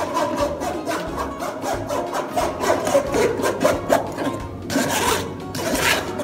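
Metal spoon scraping and rubbing blended pineapple pulp against a metal mesh strainer, in quick repeated strokes that press the juice through, with two louder scrapes near the end.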